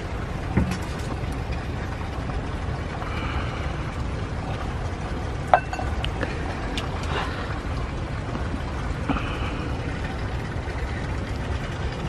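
A steady low rumble with a few light clinks, the sharpest about five and a half seconds in: a metal ladle knocking on china cups as tea is ladled out.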